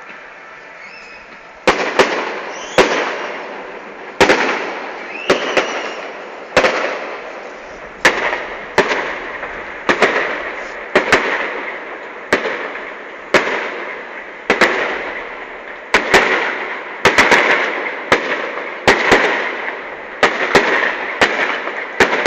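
Aerial fireworks shells bursting: sharp bangs about once a second, each trailing off in a rumbling echo, coming quicker and in pairs in the last few seconds. A few short whistles sound between the first bangs.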